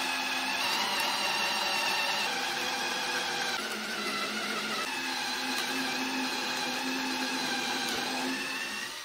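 DeWalt cordless drill running under load as a twist bit bores holes through plywood: a steady motor whine that shifts pitch slightly a few times and cuts off at the end.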